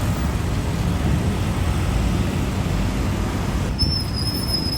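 City street traffic: a steady rumble of passing cars' engines and tyres. A thin, steady high-pitched tone comes in near the end.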